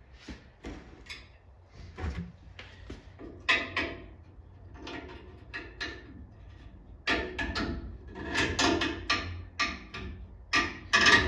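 Clicks and knocks of stainless-steel Continental-kit latch hardware being handled and fitted onto a rear bumper, scattered at first and coming thicker and louder in the second half.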